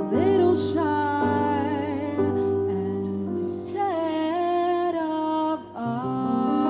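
Live female jazz vocal with piano accompaniment: a slow ballad melody sung with vibrato over held piano chords, with a brief breath pause near the end before the next phrase.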